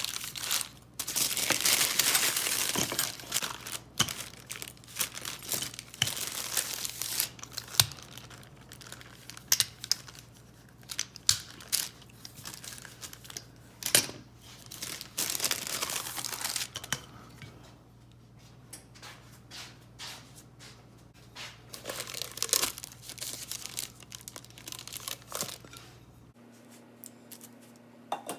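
Parchment paper crinkling and rustling in irregular bursts as pie dough is handled and rolled between the sheets, with scattered light clicks and knocks.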